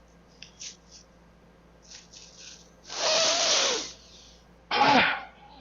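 A person snorts hard and long through the nose, then coughs once about a second later. Before this there is faint rustling of a plastic bag.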